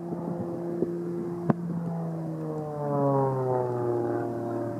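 Engine and propeller of an aerobatic propeller plane flying overhead. The drone holds steady at first, then falls in pitch through the second half as the plane comes out of its manoeuvre. A single sharp click comes about one and a half seconds in.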